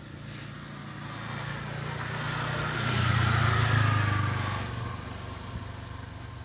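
A motor vehicle passing by, its engine growing louder to a peak in the middle and then fading away.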